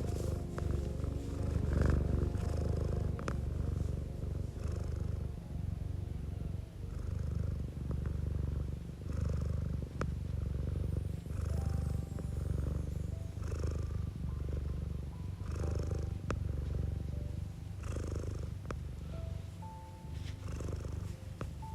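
Domestic cat purring, a low rumble that swells and eases about every second and a half, over soft background music.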